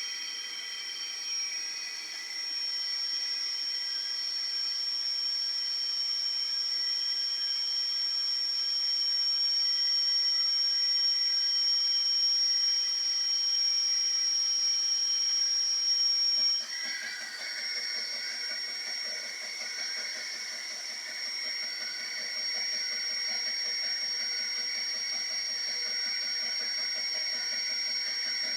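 K1 3D printer running with a steady high-pitched whine over a hiss. A little past halfway the whine changes pitch and a rapid, faint ticking begins, typical of the stepper motor on the jammed extruder knocking as it skips.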